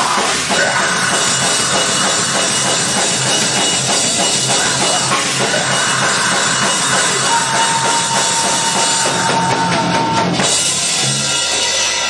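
Live rock band playing loudly, with a drum kit and bass drum driving a steady beat under the guitars. A single high note is held for about three seconds partway through.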